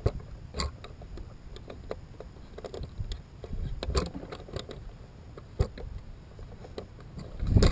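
Scattered sharp clicks and knocks, about eight, a second or so apart, over a low steady rumble.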